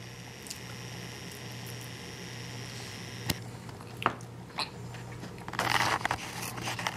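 Quiet wet mouth and spoon sounds of a baby being spoon-fed oatmeal cereal: a few small clicks, and a short noisy burst about six seconds in, over a steady low hum.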